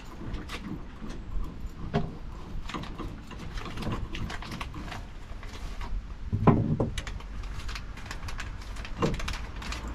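Scattered clicks and knocks of hardtop mounting parts being handled and fitted, with a louder thump about six and a half seconds in.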